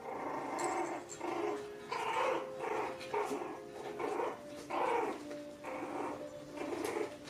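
Six-week-old toy poodle puppies growling in play, a quick run of short growls about twice a second, over faint background music.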